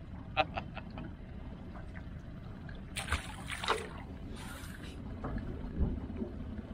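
Water lapping against an aluminum boat with wind on the microphone, a steady low rumble. A few light clicks come under a second in, and two short hissing, splashy noises about three and four and a half seconds in.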